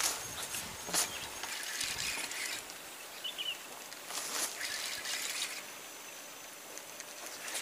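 Fishing reel being wound in short bursts of a few seconds each while a hooked fish is played. A couple of brief bird chirps are heard between the bursts.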